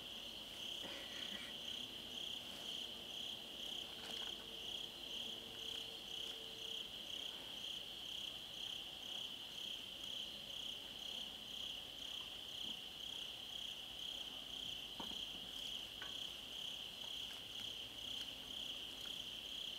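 Night insect chorus: a steady high-pitched chirring with a regular pulse.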